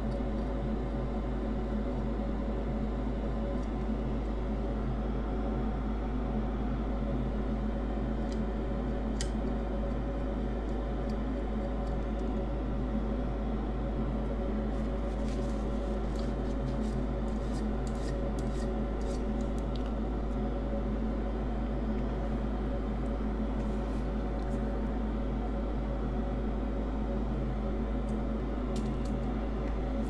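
Steady mechanical hum, like a workbench fan running, with faint scratchy ticks for a few seconds around the middle as a swab scrubs the circuit board clean.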